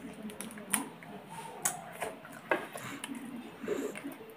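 Blue swimmer crab shell cracking and snapping as it is picked apart by hand and bitten: a few sharp clicks about a second apart, between softer eating noises.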